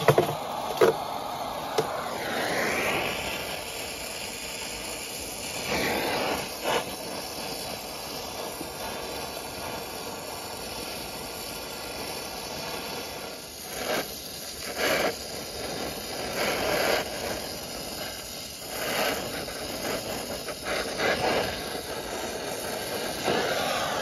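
Brazing torch flame hissing steadily on a copper refrigerant joint while a new service valve is brazed in, with louder surges every few seconds and a few short knocks near the start.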